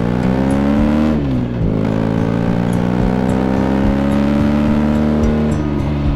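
Motorcycle engine pulling under throttle. Its pitch rises, drops sharply about a second in as the revs fall, then climbs steadily again.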